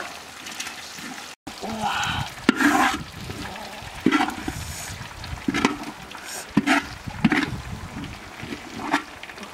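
A wooden spatula scraping and knocking against a large metal wok, several sharp strikes with scraping between them, as fried eel pieces in oily sauce are scooped into a woven basket.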